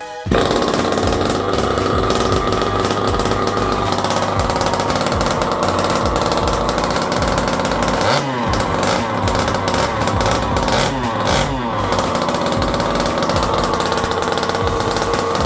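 Small two-stroke petrol engine of a large-scale RC car running loud and rattly during a bench test. Its pitch rises and falls a few times about halfway through as the throttle is blipped.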